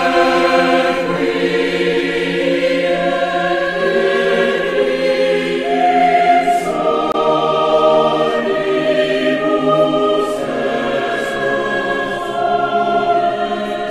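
Choral music: a choir singing long held chords that move to a new chord every couple of seconds.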